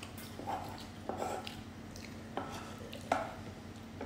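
A metal fork scraping and tapping leftover food together on a wooden cutting board: a few short separate scrapes, with a sharper knock about three seconds in.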